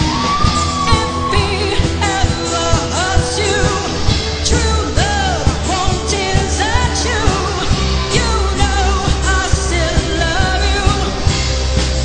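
Live rock band playing a song: a singer over a heavy bass line and a steady drum beat.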